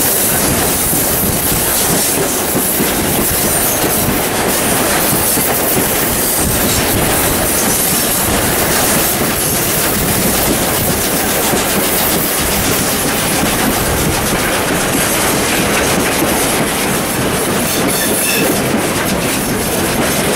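Steam locomotive 621, a South Australian Railways 620-class 4-6-2, working hard up a steep 1-in-45 grade, its exhaust beating from the chimney, heard from an open carriage window together with the rhythmic clatter of the carriage wheels over the rail joints. The sound is loud and steady throughout.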